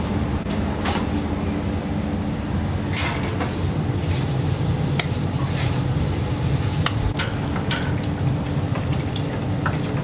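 Restaurant kitchen at work: a steady low hum of kitchen machinery under scattered clinks and clicks of utensils and dishes.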